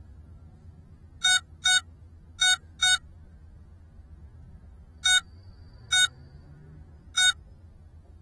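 Seven short, identical electronic beeps at one pitch from an FPV quadcopter's onboard electronics while the drone sits still on the ground: two quick pairs, then three single beeps about a second apart. A faint low hum runs underneath.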